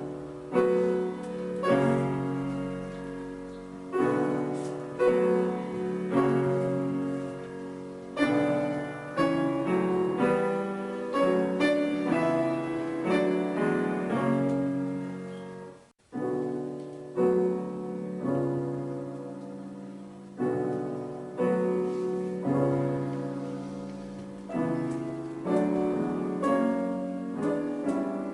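Solo piano music: chords and a melody struck at an unhurried pace, each fading after the strike. It breaks off for an instant about halfway through and starts again.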